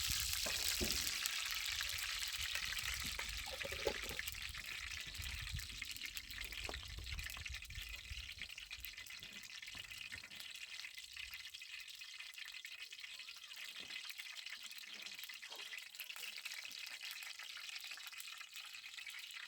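Food frying in hot oil: a steady sizzling hiss with scattered small pops, easing off gradually, with a low rumble under it during the first half.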